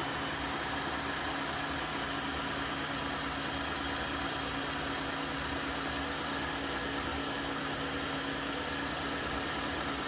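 Tineco Floor One F3 wet-dry floor vacuum running its self-cleaning cycle: a steady motor whir and rushing suction with a constant hum and no change in pitch or level.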